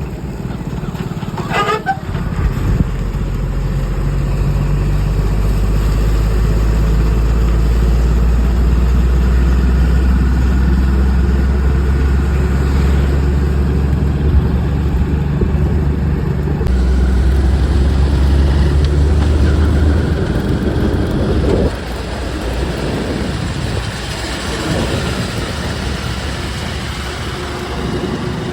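Heavy diesel machinery, a backhoe loader and tipper trucks, running hard with a strong low engine drone. About 20 seconds in the drone drops to a lower, rougher running. A brief wavering higher tone sounds near the start.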